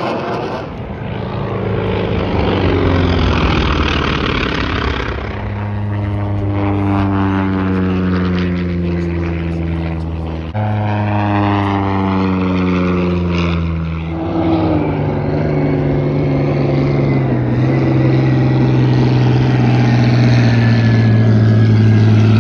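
Propeller stunt plane flying past overhead: a steady rushing noise at first, then an engine drone whose pitch falls as the plane passes, twice, with an abrupt cut between. A steadier engine drone grows louder toward the end.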